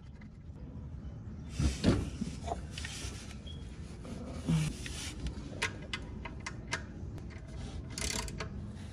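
Hands working under a car at the oil drain plug: a cloth rubbing and wiping around the plug and oil pan, with scattered light knocks and clicks, two of them louder about two seconds in.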